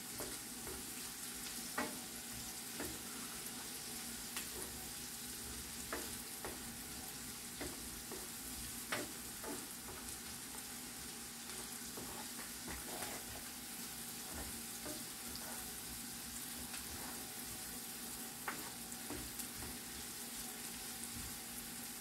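Food frying in hot oil in a pan, a steady sizzle, with a scattered click or scrape now and then from stirring.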